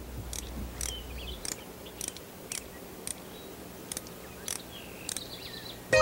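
Sparse, short high-pitched chirps and clicks, irregular at about one or two a second, over a faint low hum that stops about a second and a half in.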